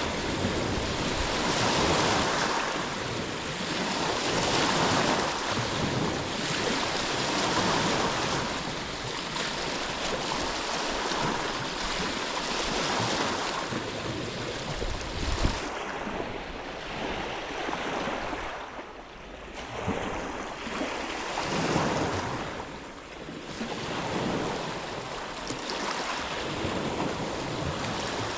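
Ocean waves washing in and drawing back, the rush swelling and fading every few seconds. A single brief thump comes about halfway through.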